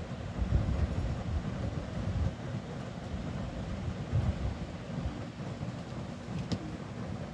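Steady low rumble, with one small sharp click about six and a half seconds in as tweezers work inside a spinning reel's body.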